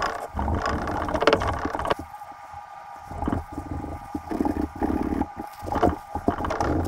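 Fine 0000 steel wool scrubbing over the steel lever of a Henry .22 lever-action rifle, with irregular scratchy strokes and a brief lull about two seconds in. The lever has been boiled so the rust turns to black oxide, and this rubbing is the carding that polishes it off.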